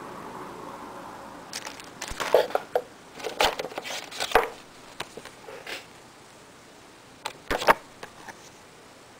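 Packaging being handled: crinkling rustles and sharp taps as hands take a plastic-sleeved card and paper inserts out of a cardboard box. The handling comes in irregular bunches, busiest from about one and a half to six seconds in, with a few more sharp clicks near the end.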